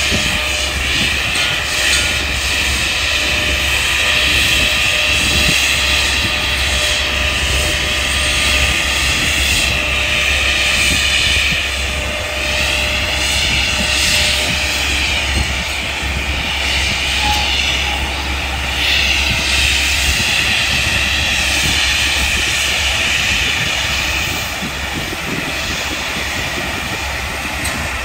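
Boom-mounted rotary tree-trimming saw whining high and steady, its pitch dipping and recovering several times as it cuts through branches, over the machine's low engine rumble, which weakens about two-thirds of the way through.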